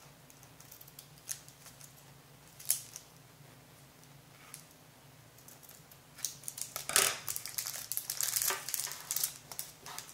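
Scissors snipping ribbon ends, a few separate snips at first. Over the last few seconds comes a dense run of snips and crinkling from the clear plastic treat bag being handled.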